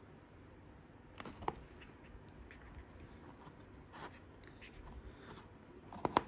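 Faint scattered clicks and light taps from a small plastic model on a hand-held paint-pot holder being turned in the fingers while a fine brush works on it, with a sharper pair of taps near the end.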